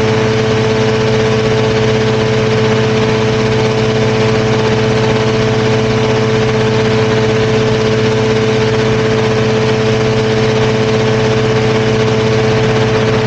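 Engine and pusher propeller of a tandem powered parachute running steadily in flight. It is a constant drone with one strong held tone that does not change pitch or level.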